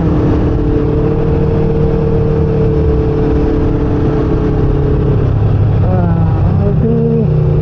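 Motorcycle engine running at a steady cruise with a constant note under heavy wind noise. About six seconds in, the engine note changes pitch in a few steps.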